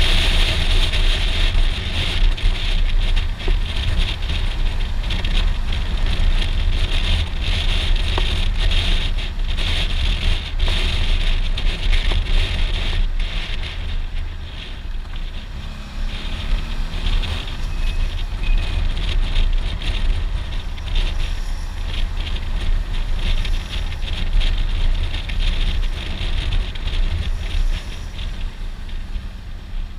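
Wind rushing over a helmet-mounted microphone, over the low running of a Suzuki V-Strom 650XT's V-twin engine on the move. The wind noise eases about halfway through.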